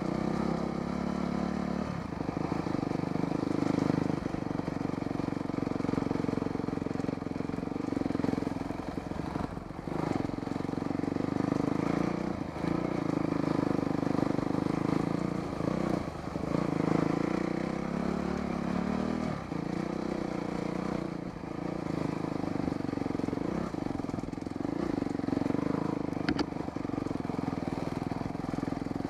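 Dirt bike engine running close by on a trail ride, the throttle rolling off and back on every few seconds, with a few brief knocks over rough ground.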